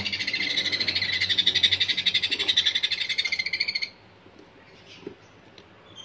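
Baby sun conure chicks calling, a rapid, evenly pulsed rasping call that goes on for about four seconds and stops abruptly.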